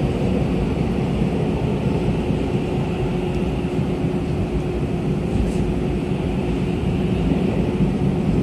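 Running noise inside a Tobu 50050-series electric train car in a subway tunnel: a steady rumble of wheels on rail with a constant low hum.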